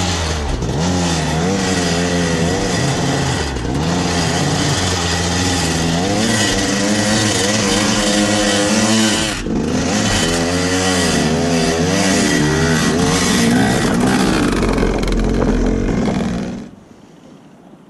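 KTM 250 EXC two-stroke dirt bike engine revving hard up and down under load as it claws up a steep dirt hill climb. It stops abruptly near the end.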